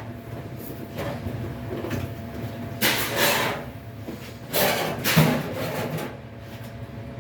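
Scraping and rustling handling noises in a few short bursts, about three seconds in and again around five seconds in, as things are moved behind a clothes dryer.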